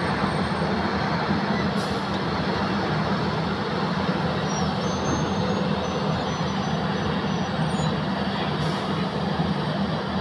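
Heavy diesel engines of a SANY 500 hydraulic excavator and a Mercedes-Benz Axor dump truck running steadily, a continuous low drone while the excavator digs and loads.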